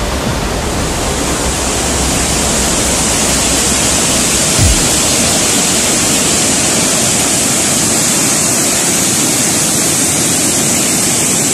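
Steady, loud rush of water from a whitewater waterfall and rocky mountain torrent, with a single low thump about four and a half seconds in.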